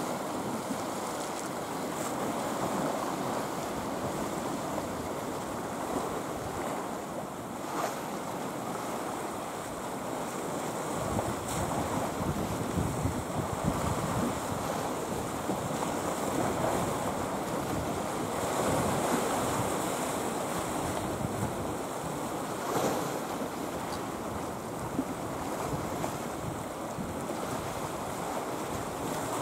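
Sea waves washing on a rocky shore, with wind buffeting the microphone; the wind rumble gets heavier about a third of the way in.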